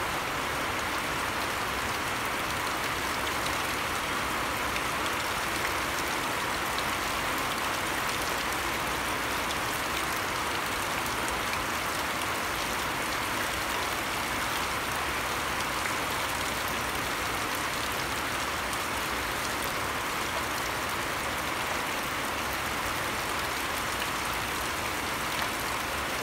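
Steady rain falling on grass and a shallow puddle: an even hiss of countless small drop hits that holds at the same level throughout.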